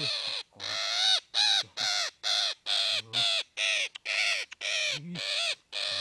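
Green parrot screeching while gripped in a person's hands: a rapid run of about a dozen short, harsh calls, roughly two a second, each rising and falling in pitch.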